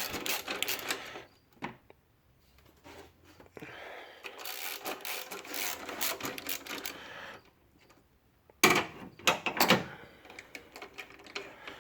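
Hand ratchet clicking as a bolt on the alternator bracket is backed off. The clicking comes with metal rubbing and scraping. A burst of louder clicks and knocks comes late.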